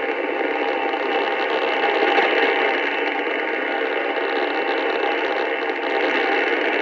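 Radio static: a steady, loud hiss with several faint steady whistling tones running through it.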